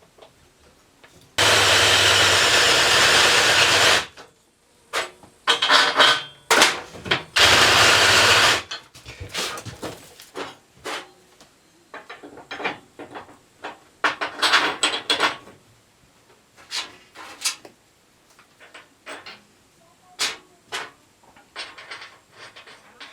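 A power tool runs steadily twice, for about two and a half seconds and then about a second, followed by a long series of knocks, clicks and rattles of tools and metal parts being handled.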